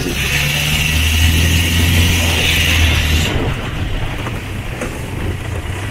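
Engine of a small canal boat running steadily under way, with a broad hiss of water and wind over it. About three seconds in, the highest part of the hiss cuts off suddenly and the engine hum sounds weaker.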